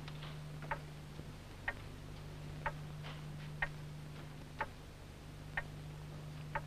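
Longcase (grandfather) clock ticking slowly and evenly, about once a second, over a steady low hum.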